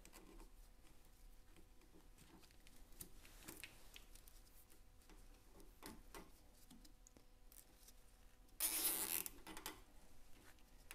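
Wiring loom being pressed into plastic saddle-bush clips on a kit-car chassis: faint clicks and rustling of cable and plastic, then a louder rasp of about a second near the end.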